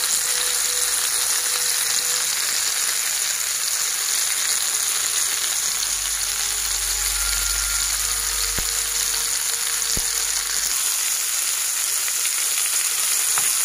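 Breaded, cheese-filled chicken rolls sizzling steadily as they shallow-fry in oil in a pan.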